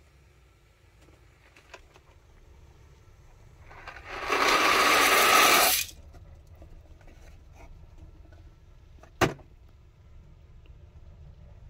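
Dry rotini pasta poured from a cardboard box into a pot of hot water: a loud rush of noise about four seconds in, lasting about two seconds. A single sharp knock follows a few seconds later.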